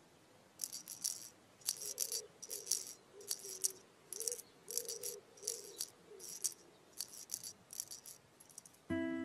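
A rattle shaken in short bursts, roughly one or two shakes a second, over a faint wavering tone. Near the end, chiming mallet-percussion music begins.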